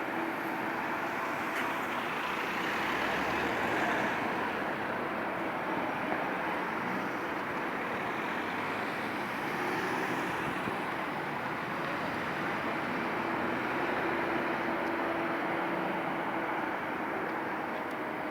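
Steady road traffic noise from a stream of cars driving past, engines and tyres blending into one even rush with no single loud event.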